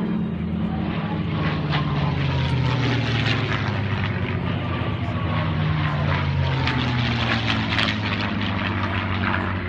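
Propeller-driven airplane flying past, its engine note sliding slowly down in pitch as it goes by.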